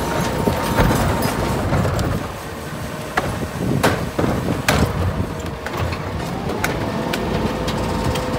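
Rear-loader garbage truck running steadily with its hydraulic cart tippers working, as plastic trash carts are tipped and emptied into the hopper. Sharp knocks sound about once a second as the carts bang against the lifter.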